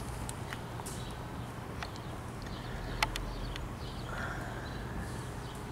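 Footsteps with scattered light taps and one sharp click about three seconds in, over quiet outdoor background with faint bird chirps.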